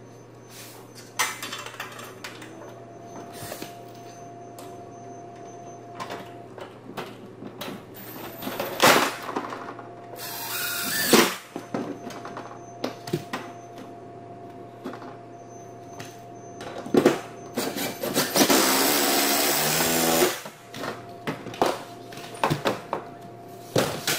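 Cordless drill driving screws through a baseboard heater's metal housing into the wall, in several short runs, the longest about two seconds with the motor's pitch rising and falling. Between runs come sharp clicks and knocks of the metal housing and tools being handled.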